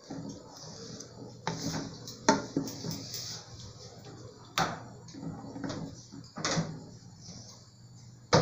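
Kitchenware handling on a gas stove: a wooden spoon knocking against an aluminium saucepan and the pan being moved on the metal grates, about half a dozen sharp separate knocks over a low steady hum.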